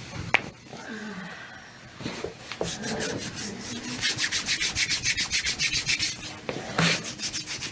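Hands rubbing briskly back and forth over bare feet and skin, a fast even run of scraping strokes about six a second, with a short break near the end.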